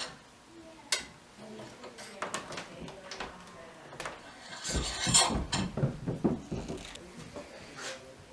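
Small hard parts being handled on a bench: scattered clicks and taps, with a louder stretch of rubbing and scraping about five seconds in.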